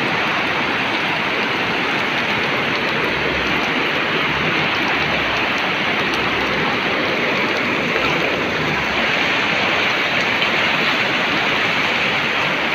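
Steady, even rush of a flooded river running high and spilling over its banks after a day of heavy rain.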